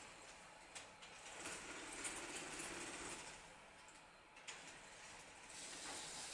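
Faint mechanical whir of a mobile stage robot's motors as it turns in place and swings its stalk-eyed arms, with a few light clicks.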